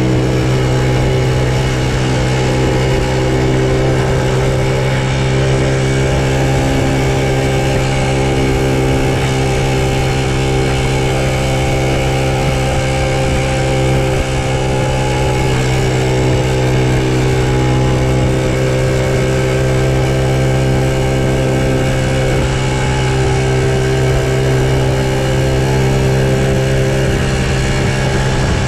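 Honda Super Cub's single-cylinder four-stroke engine running at a steady speed while riding, with wind and road noise; the owner says this engine makes an abnormal noise.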